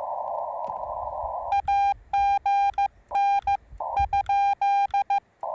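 Yaesu FT-891 transceiver's CW sidetone as Morse code is sent with paddles: a loud, clean single-pitch beep keyed in dits and dahs from about a second and a half in until near the end. The radio's narrow-filtered band hiss is cut out while it transmits and comes back when sending stops.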